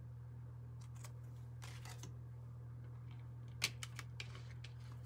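Tarot cards being handled and set down on a wooden table: a few soft slides and light taps, with the sharpest click about three and a half seconds in, over a steady low hum.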